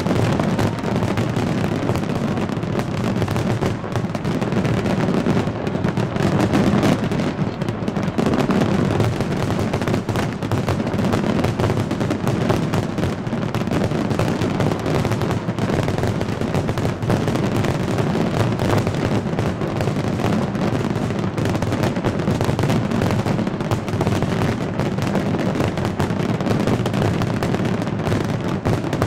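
A large fireworks display in full barrage: shells bursting so fast that the reports overlap into one continuous, steady din with no pauses.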